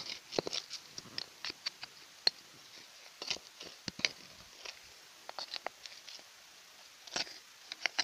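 Irregular crunching scrapes and clicks of a hand trowel digging into stony soil.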